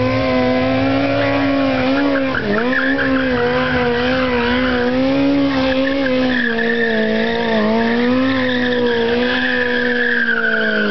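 Sport motorcycle engine held at high, fairly steady revs during a stunt, briefly dipping about two and a half seconds in. From about halfway, a tyre skid hiss on the asphalt joins it.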